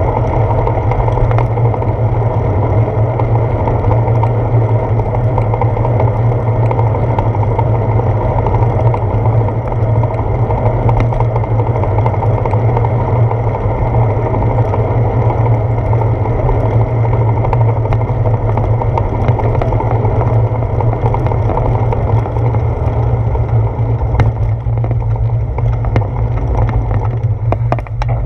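Steady wind buffeting and road rumble on a handlebar-mounted GoPro Hero 4's microphone as a bicycle rides along. The noise eases a little near the end as the bike slows.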